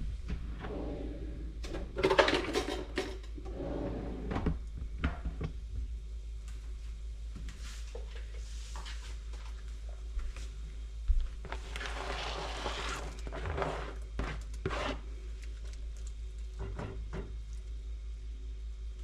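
Pots, dishes and utensils being handled in a kitchen: a few bouts of clattering knocks and scraping, about two seconds in and again around twelve seconds in, with odd clicks between, over a steady low hum.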